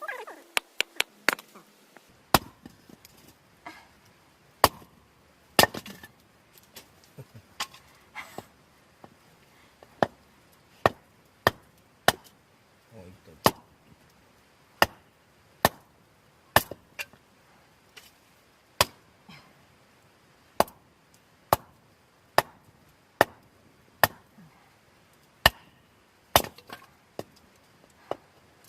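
Wood being chopped: a long series of single sharp chopping strikes, roughly one every second or so.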